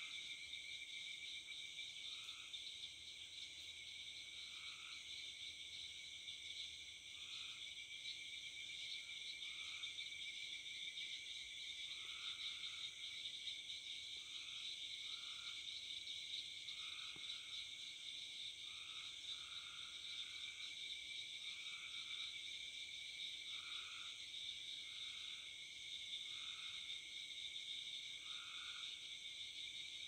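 Evening insect chorus, a steady high-pitched trilling, with short frog calls repeating every second or two beneath it.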